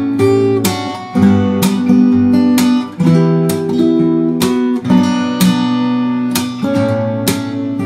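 Guitar playing strummed and picked chords, each chord struck and left to ring.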